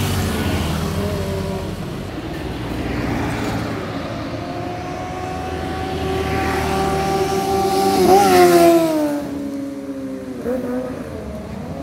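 Kawasaki ZX25R's inline-four engine running at high revs through a Yoshimura aftermarket exhaust as it rides past. The high engine note holds and climbs, is loudest about eight seconds in, then drops in pitch as the bike goes by.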